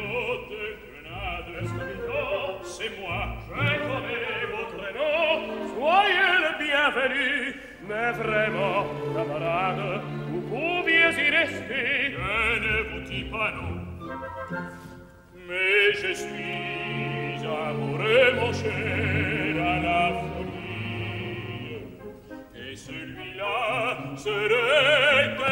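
Two male opera voices, a tenor and a baritone, trading sung lines in French over an orchestra, with a brief lull about midway.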